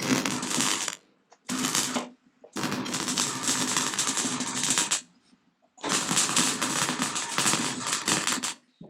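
MIG welder arc crackling in four runs: about one second, a short half-second burst, then about two and a half seconds and about three seconds, stopping sharply between runs. The runs are tacks and short welds laying steel patch pieces into a tractor's sheet-steel nose cone. A low steady hum sits under the crackle.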